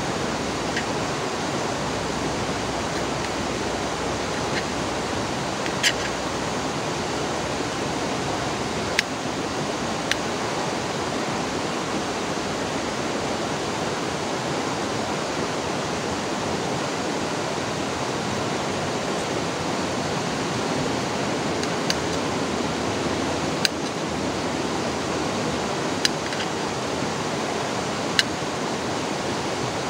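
Steady babbling rush of a flowing river. Several sharp clicks and taps now and then, from small metal camp cookware and a stove being handled.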